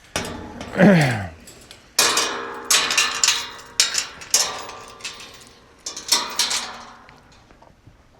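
Metal clanking and rattling in several bursts, each with a short ringing tone, beginning about two seconds in. Before it, about a second in, comes one short low call that falls in pitch.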